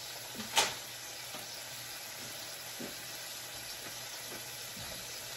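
Pork belly, beef and kimchi sizzling steadily on an electric griddle, with one sharp click about half a second in and a few faint ticks after it.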